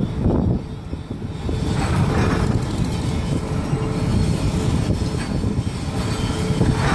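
Steady low machinery rumble with a faint constant hum, filling the background while lashing chains are being tensioned.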